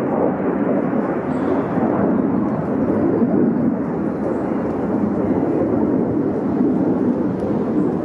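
Loud, steady jet noise from F-16 fighter jets flying over the forest.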